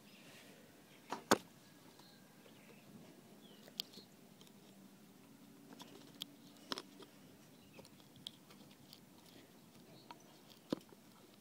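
Quiet background with a scattering of short sharp clicks and light taps, the loudest about a second in: handling noise of a phone held against dry nest grass.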